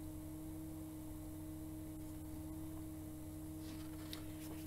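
Quiet room tone: a steady low hum with a constant faint tone, and a few faint soft rustles near the end.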